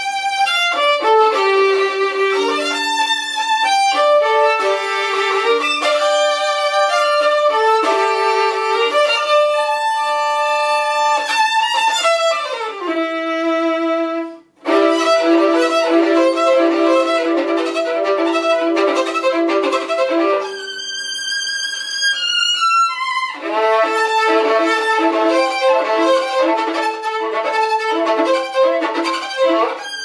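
Solo violin, bowed, playing a melodic passage of shifting notes. About halfway it breaks off for a moment, then comes back with quick repeated notes, followed by a high sliding descent in pitch before the notes pick up again.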